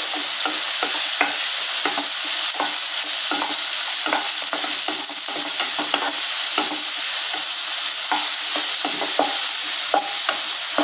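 Chopped onions, green chillies and curry leaves sizzling in hot oil in a nonstick kadai, stirred with a wooden spatula that scrapes the pan in many short strokes over a steady high hiss. The onions are being sautéed until translucent.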